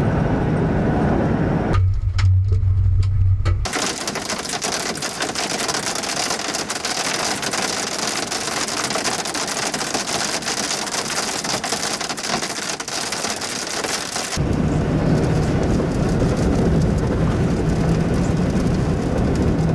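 Heavy rain pelting the windshield and body of a moving vehicle, a dense crackle of drops, heard from inside the cabin. Before and after it comes the steady low drone of engine and road noise, and the sound changes abruptly a few times where clips are spliced together.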